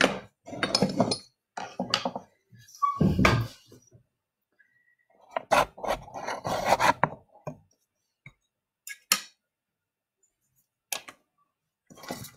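Clinks and scrapes of a utensil against small cups of instant coffee dissolved in water, in short irregular bursts with pauses between.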